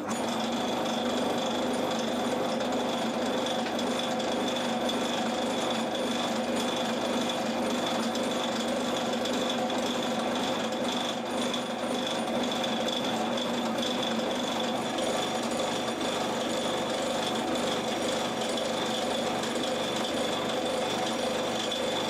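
Metal lathe running steadily, its tool turning down a grade 8.8 steel bolt, with a constant high whine over the motor hum.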